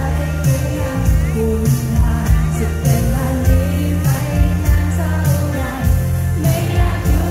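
Live pop band playing: a woman singing over electric guitar, bass and keyboard, with drums keeping a steady beat.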